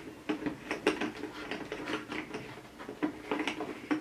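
The side screw knobs of a Steelbird SBA-6 open-face helmet's visor mount being turned loose by hand, giving an irregular run of small clicks and rattles, a few a second.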